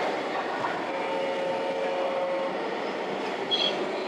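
Radio-controlled model trucks running, with electric motor and gearbox whine over a steady background noise. A steady whining tone holds for about a second and a half, and there is a short high squeak near the end.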